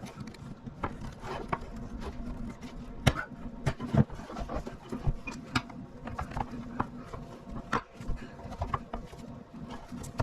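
Irregular clicks, knocks and scrapes of hand work on old welder cable, stripping the insulation to free the copper strands, over a steady low hum.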